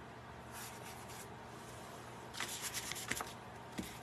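Round stencil brush swirled and rubbed over a stencil on a canvas tote and dabbed on a paper towel: soft, scratchy brushing, with a faint hiss about half a second in and a quicker run of scratchy strokes past the middle.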